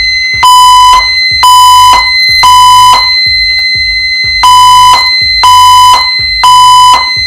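System Sensor red fire alarm speaker/strobes in alarm, sounding the temporal-three evacuation tone: three half-second beeps, a pause, then three more, over a steady high-pitched tone. This is the alert signal of a voice evacuation fire alarm system set off by a manual pull station.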